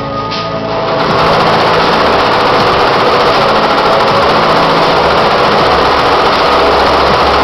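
SWF multi-needle embroidery machine running and stitching at a steady pace. Background music plays at the start and stops about a second in, when the machine sound comes in loud and even.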